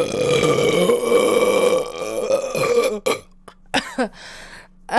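A woman's long, loud burp, held for about three seconds at a fairly steady pitch, then a few short vocal sounds.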